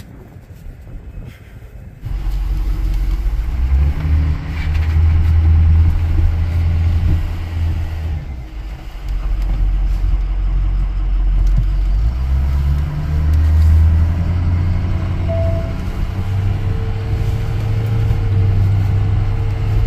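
Ford Super Duty dually pickup with a Power Stroke diesel, heard from inside the cab as it drives off. After a quiet first two seconds the engine and road rumble come in suddenly and stay loud, the engine note stepping up and down several times as the truck gathers speed.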